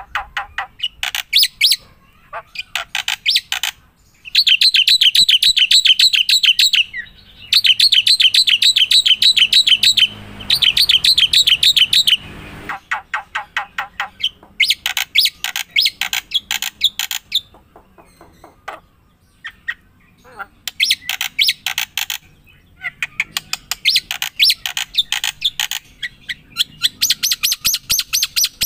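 A bird chirping loudly, in fast trills of two to three seconds each with runs of short single chirps between them.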